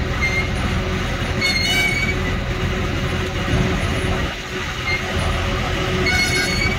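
A heavy vehicle's diesel engine running steadily, with brief high-pitched squeals about a second and a half in and again near the end.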